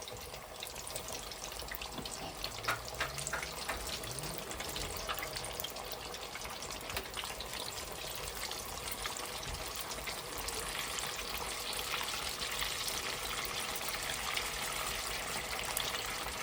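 Flour-coated chicken pieces deep-frying in hot oil: a steady sizzle with a few light clicks around three to five seconds in, growing louder and fuller about ten seconds in.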